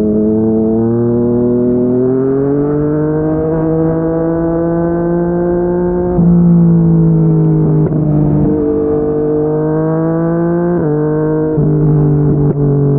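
Yamaha MT-09's inline-three engine through a Yoshimura R55 slip-on exhaust, pulling under acceleration. Its note climbs steadily in pitch, then drops sharply at gear changes about six seconds in and again around eleven seconds.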